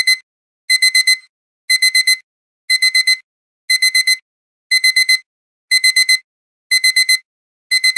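Digital alarm-clock beeping marking the end of a countdown timer: rapid groups of four short, high-pitched beeps, each group repeating about once a second.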